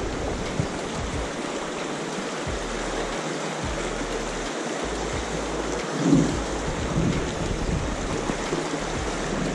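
Steady rush of a small, fast trout stream running over rocks close to the microphone, with a brief low bump about six seconds in.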